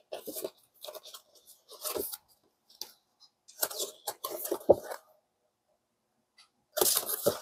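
Glossy cardstock art cards being handled and shuffled: the cards rustle and slide against one another in several short bursts, with silence between them.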